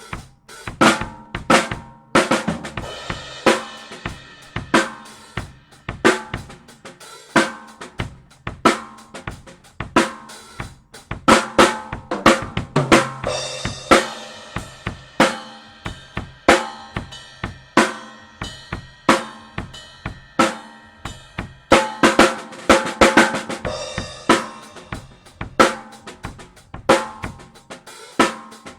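Drum kit played in a steady groove, snare backbeat over kick and hi-hat, with crash-cymbal wash at a few fills, the snare close-miked with an AKG P3S dynamic microphone.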